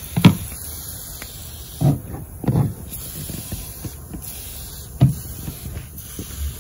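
Aerosol can of tire foam spraying in a steady hiss onto the engine bay parts, with several short thumps mixed in.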